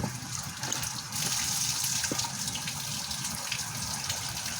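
Rainwater rushing steadily into a drain that is being cleared of debris, growing louder about a second in.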